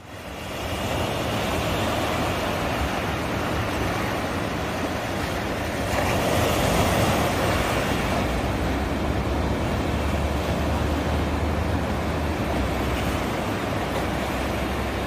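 Ocean surf breaking and washing up the beach: a steady hiss of waves over a low rumble, fading in at the start and swelling briefly about six seconds in as a wave breaks.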